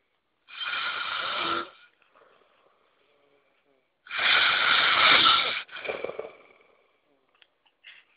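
A man snoring in his sleep: two loud snores about three and a half seconds apart, the second louder and longer, trailing off more quietly.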